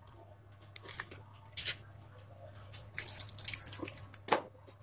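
Black cellophane tape being pulled off its roll and wrapped around a broken plastic eyeglass temple: short bursts of crackly peeling and rustling, busiest about three seconds in, with a sharp, louder crackle near the end.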